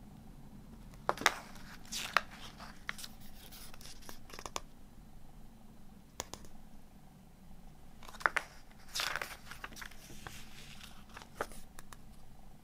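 Glossy paper pages of a CD booklet being turned by hand: two spells of paper rustling and swishing, with scattered sharp ticks and snaps of the paper between them.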